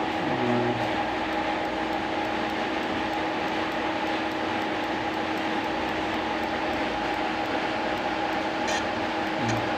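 Lathe simulator's machine sound running steadily: an even mechanical hum with several steady tones, and a sharp click near the end.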